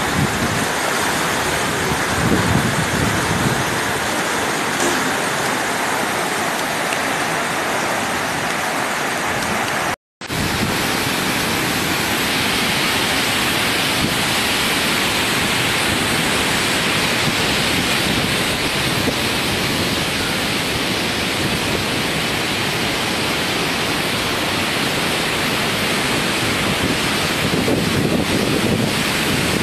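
Steady rush of fast-flowing floodwater, a dense even hiss of churning water. About ten seconds in the sound cuts out for a moment, then the rush of a waterfall in spate takes over.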